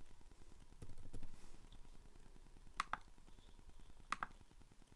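Faint clicking of a laptop's keys and touchpad buttons: a few soft taps about a second in, then two sharp double clicks, one near three seconds and one just after four.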